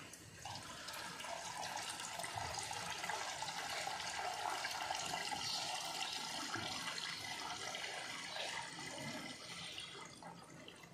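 Lacquer thinner being poured in a steady stream into mixed paint, thinning it for spraying; the pour eases off near the end.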